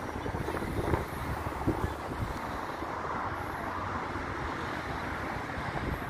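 Wind rushing over the microphone: a steady noise with two brief faint knocks in the first two seconds.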